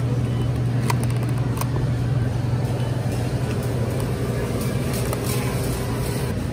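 A machine running steadily: a low hum under an even rushing noise, with a few light clicks about a second in.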